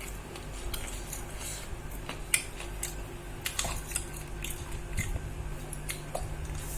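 A person eating chicken kasa with rice, chewing, with scattered small clicks and smacks over a steady low hum.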